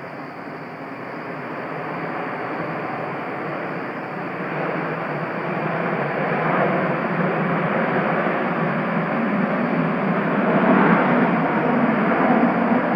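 Jet noise from a B-1B Lancer's four F101 turbofan engines, growing steadily louder as the bomber comes closer.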